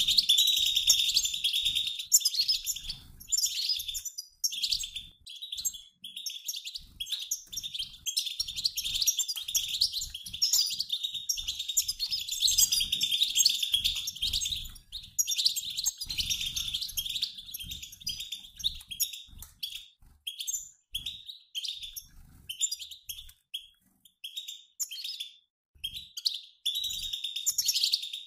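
European goldfinches, a mixed flock of males and females, twittering in rapid, overlapping chattering calls, the flock chatter that bird keepers play to prompt caged male goldfinches to sing. The calls run densely at first, then come in shorter runs with brief gaps in the last third.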